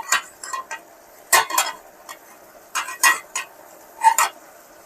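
A metal spoon scraping and clinking against a cooking pot as a curry is stirred, in short clusters of strokes about once a second.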